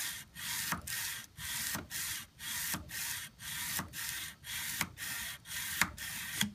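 220-grit sandpaper on a block rubbed along an oiled steel knife blade by hand, in even hissing strokes about two a second. These are slow, controlled final passes for a hand-rubbed finish.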